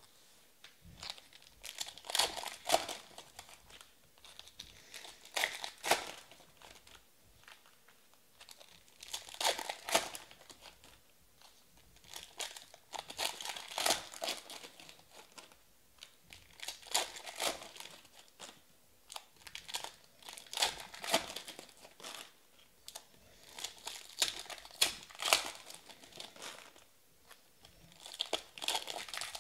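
Plastic-foil wrappers of Panini Prizm Draft football card packs crinkling and tearing open, one pack after another, with a burst of crackling every three to four seconds.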